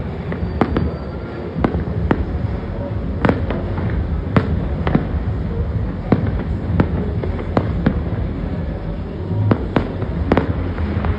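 Aerial firework shells bursting in an irregular run of sharp bangs, roughly one or two a second, over a steady low rumble.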